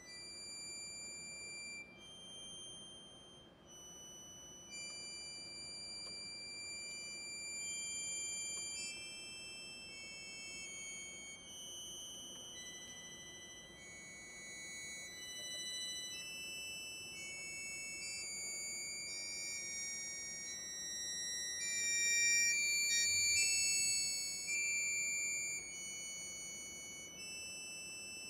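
Bayan (Russian button accordion) and cello playing a soft passage of high, held notes that overlap and change every second or two, swelling a little about two-thirds of the way through.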